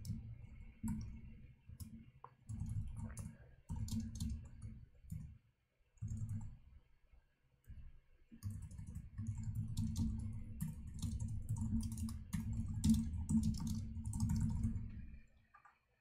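Typing on a computer keyboard: bursts of rapid key clicks broken by short pauses, stopping about a second before the end.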